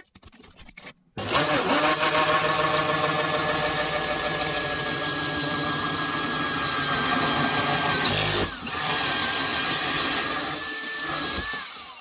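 Cordless drill spinning a hole saw that cuts into the wall: a steady motor whine starting about a second in, with a brief dip about eight seconds in, then falling in pitch as the drill winds down near the end.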